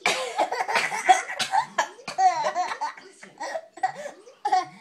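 Laughter in repeated short bursts, mixed with coughing.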